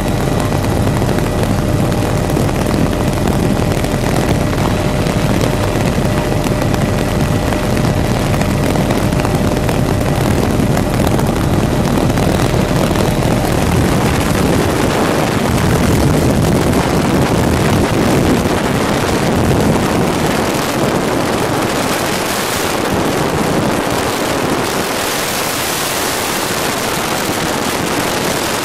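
Helicopter flying with its doors off: steady, loud engine and rotor noise mixed with rushing wind through the open doorway. In the second half the low rotor rumble drops back and the windy hiss grows louder.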